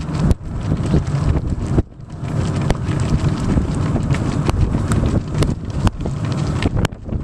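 Wind buffeting the microphone of a camera moving along at running pace, a steady low rumble with a few faint clicks scattered through it.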